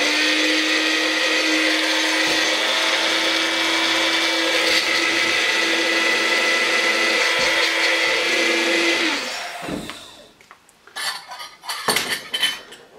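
Bullet-style personal blender grinding dried lemon zest and pepper: a loud, steady motor whine with the rattle of the dry mix, held for about nine seconds and then winding down. Near the end come a few light clinks and taps on metal as the ground seasoning is knocked out into a small stainless bowl.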